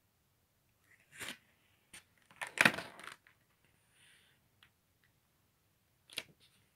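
Paper pages of a spiral-bound sketchbook being handled and turned: a few short rustles and crackles, the loudest about two and a half seconds in, and another short one near the end.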